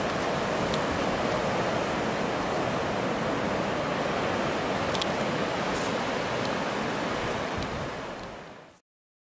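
Ocean surf breaking on a beach: a steady rush of foaming waves that fades out near the end.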